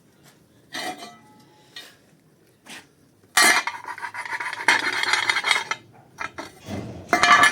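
Stick-welding arc run off two batteries: a few short crackles as the rod is struck, then a loud crackling arc for about two seconds a little past three seconds in, and another short burst near the end.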